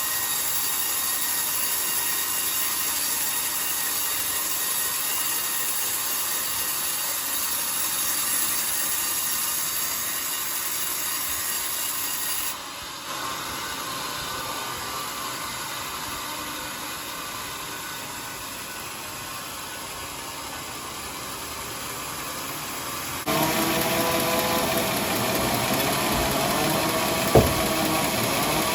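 Sawmill bandsaw cutting a coconut-palm log, a steady sawing noise that drops abruptly to a quieter cut about halfway through. Near the end a louder machine with a steady pitched hum takes over, with one sharp knock.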